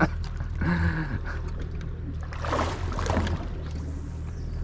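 Steady low hum of the boat's idling outboard motor, with brief voice sounds over it about a second in and again around three seconds in.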